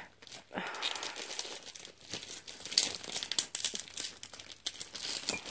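Plastic packaging being crinkled and pulled off, a run of irregular crackling and rustling with sharper crackles scattered throughout.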